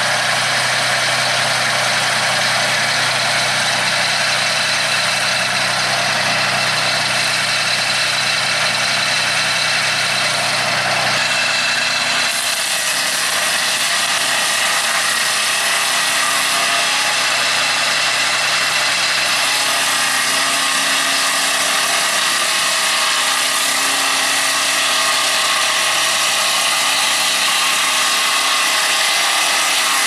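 Honda GX690 V-twin engine on a swing-blade sawmill running steadily while its circular blade cuts a tallowwood hardwood log; the sound changes character abruptly about twelve seconds in.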